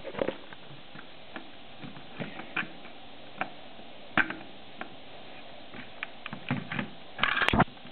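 Plastic Lego bricks clicking and tapping as a built Lego ship is handled on a wooden tabletop: scattered light clicks, with a louder clatter near the end.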